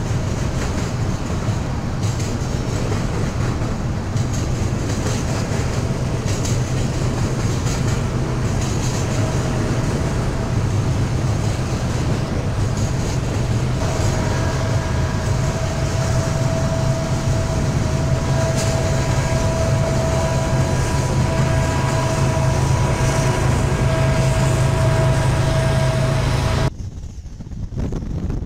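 Freight train of covered hopper cars rolling past: a steady rumble and wheel-on-rail noise, with a steady high whine joining about halfway through. Near the end the sound cuts off abruptly to a quieter hiss.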